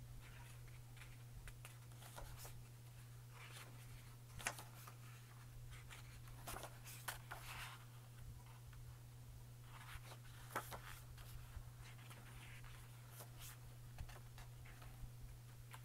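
Pages of a large hardcover photo book being turned by hand: faint paper rustles and soft slaps, several times, over a low steady hum.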